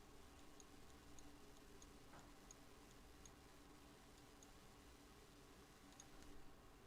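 Near silence: faint room tone with light, sharp ticks, somewhat fewer than two a second.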